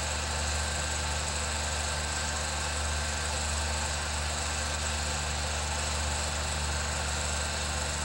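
8mm film projector running: a steady motor hum with an even hiss over it.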